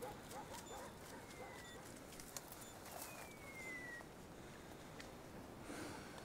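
Faint rustling and snapping of twigs as someone moves through wet scrub, with short high beeps at regular intervals and two falling whistle-like tones.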